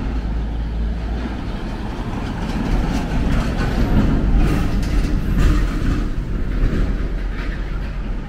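Steady low rumble of road traffic on a city street, swelling a little in the middle and easing off.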